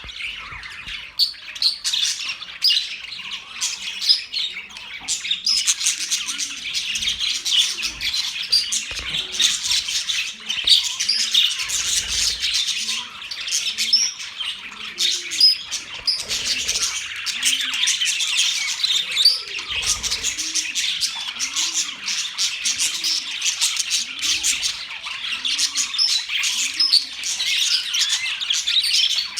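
A flock of budgerigars chattering and chirping continuously, a dense mix of warbles, tweets and squawks. Underneath, a faint low sound repeats about once a second through most of the stretch.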